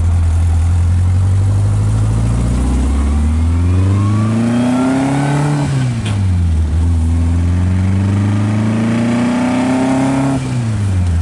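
1951 Morgan Plus 4's four-cylinder engine accelerating up through the gears. The revs climb, fall at an upshift about six seconds in, then climb again and fall at a second shift near the end.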